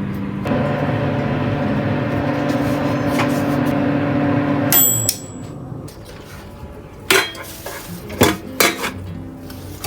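A steady mechanical hum from a running appliance, cutting off about five seconds in with a brief high beep, followed by several sharp clinks and knocks like dishes or utensils being handled.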